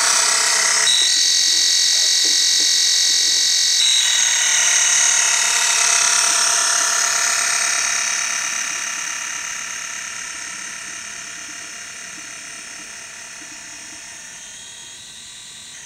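Analog motor of an HO scale Athearn SD40T-2 model locomotive with no decoder, running on DCC track power. It gives the high-pitched whine that a decoder-less motor makes on DCC. The whine is loud as the engine passes close, then fades from about eight seconds in as it runs away.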